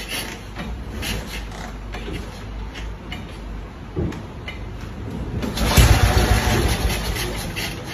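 A vintage BSA motorcycle being kick-started: clicks and knocks from the kick-start lever and controls, then a loud kick about six seconds in that turns the engine over with a short burst of engine noise that dies away within two seconds, without the engine catching and running.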